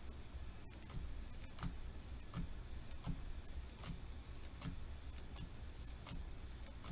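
Pokémon trading cards slid one at a time from the front of a hand-held pack stack to the back, making faint regular clicks about every three-quarters of a second.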